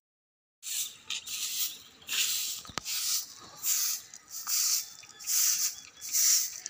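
Short straw hand broom sweeping dry leaves, seeds and dust across a brick roof: regular swishing strokes, about one a second. A brief silence at the very start, and a single sharp click about halfway through.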